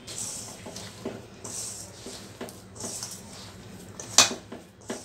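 Hand mixing mashed boiled potato with chopped onion, spices and breadcrumbs in a steel bowl: soft squishing and scraping, with irregular knocks and clinks against the metal bowl, the loudest about four seconds in.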